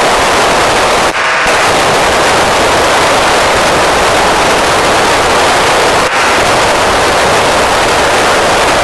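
FM receiver static from the Icom ID-5100 with its squelch open on the PO-101 satellite downlink while no station is heard: a loud, steady rushing hiss. It briefly drops out about a second in and again about six seconds in.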